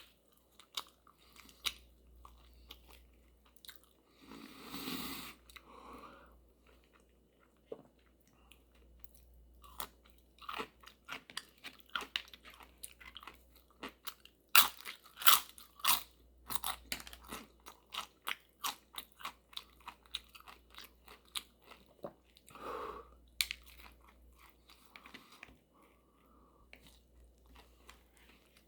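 A person biting, chewing and crunching crisp food close to the microphone, in irregular crunches that are densest and loudest about halfway through.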